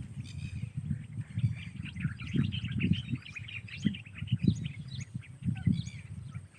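Many small birds chirping in quick, overlapping short calls, over a low, irregular rumble.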